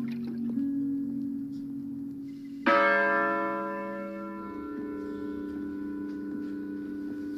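Soft held music notes from a film soundtrack, then about two and a half seconds in a single loud bell strike that rings on and slowly fades.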